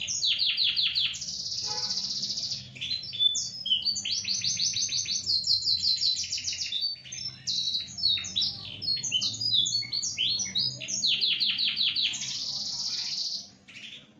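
Small domestic canary singing a long, nearly continuous song of fast trills and rapidly repeated notes, with a couple of longer held rolls; the song stops near the end.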